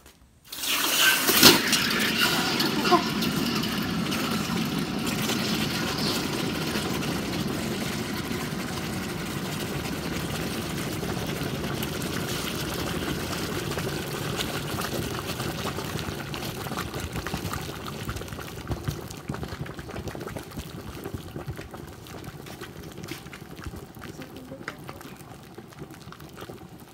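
A large, hot, freshly cast copper bar plunged into a pot of water to quench it. The water hisses and boils hard against the metal, starting suddenly about half a second in and slowly dying down.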